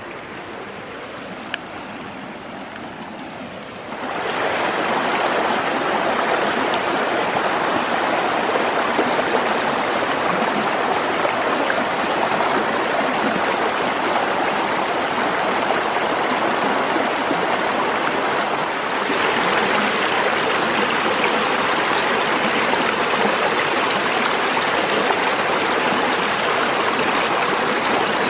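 Rain-swollen creek rushing with a good flow, a steady noise of running water. It is softer for the first few seconds, then suddenly much louder and stays steady.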